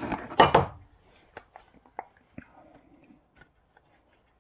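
Parts of an electric starter motor being handled and fitted together by hand: two short rattling scrapes in the first second, then scattered light clicks and taps of metal parts as the housing and end cap are lined up.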